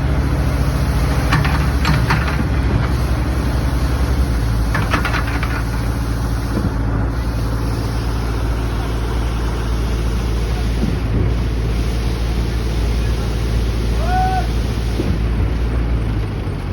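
Heavy construction machine's engine running steadily at a loud, constant drone, with short bursts of clatter about one and a half and five seconds in.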